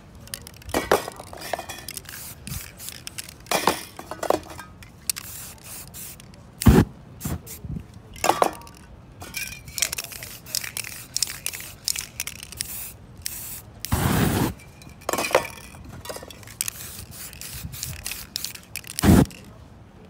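Spray-paint art work: short hisses from aerosol spray cans and scraping across the painted panel, broken by irregular clicks and a few louder knocks.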